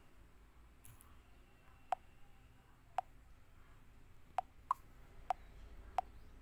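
Typing taps on a smartphone's on-screen keyboard: six short, sharp clicks at irregular spacing, some close together, over a faint steady hiss.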